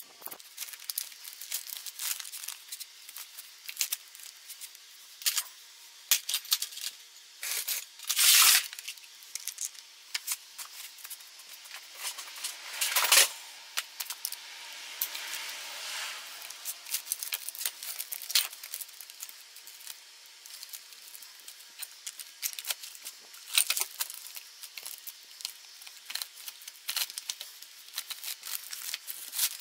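Clinks and rattles of a metal roller chain being handled and wrapped around a motorcycle engine's front sprocket, with its paper wrapping crinkling. Two louder rustling, scraping bursts come about eight and thirteen seconds in.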